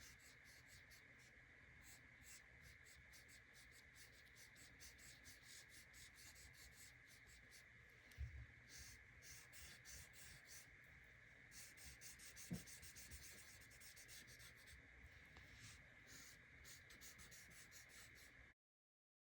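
Faint scratching of pencil strokes on paper, in quick short strokes, over a steady high hum. A couple of soft knocks come part way through, and the sound cuts off abruptly near the end.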